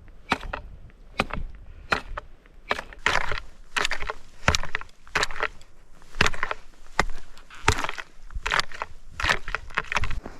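Lake ice about 45 mm thick being chopped with a pick or axe, sharp blows one or two a second with a short crunch of breaking ice after some of them: a hole being cut to check the ice thickness.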